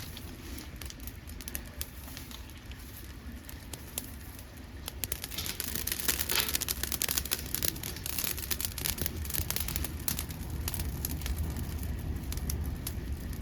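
Dead podocarpus (maki) wood burning in a homemade pail-can secondary-combustion wood stove: crackling with many sharp pops that come thicker and louder about five seconds in, over a low steady rumble.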